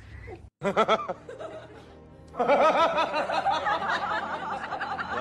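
Laughter: a few short laughs about a second in, then a fast, unbroken run of high giggling from about two and a half seconds in.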